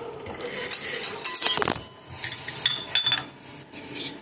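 Kitchen utensils clattering and clinking: a run of sharp knocks, then several short ringing clinks around the middle.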